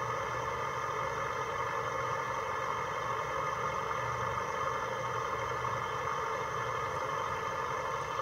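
Onboard sound of an HO-scale ScaleTrains CIMC 53' reefer container: the refrigeration unit's running sound, a steady engine-like hum from the model's small speaker.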